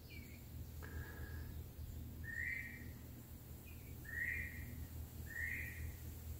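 Northern bobwhite quail calling: a couple of short whistled notes, then three similar whistled calls about a second or so apart in the latter half. The caller is taken for the female, calling for her lost mate.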